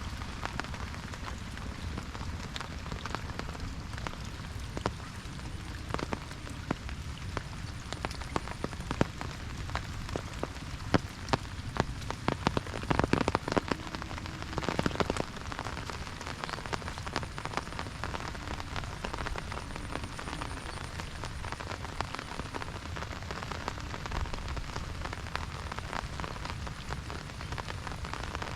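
Steady rain pattering on an umbrella overhead, dense close drop-hits over the hiss of rain on the field. A run of louder, heavier drops comes about halfway through.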